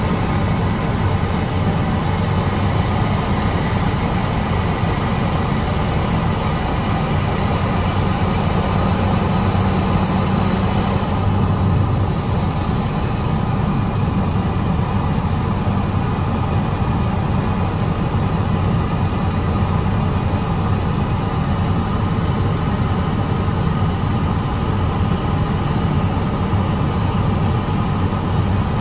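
Cockpit noise of a Cessna 208B Grand Caravan in flight: the single Pratt & Whitney Canada PT6A turboprop and its propeller running with a steady drone under a constant hiss. The plane is descending on approach.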